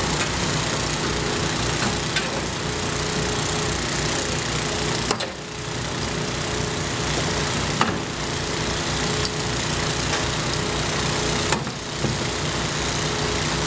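An engine running steadily at constant speed, with brief dips and small knocks about five and eleven and a half seconds in.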